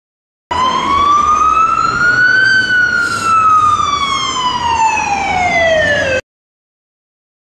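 A single siren-like wail added as a sound effect: one pitched tone rises for about two seconds, then falls slowly for about four, starting and cutting off abruptly.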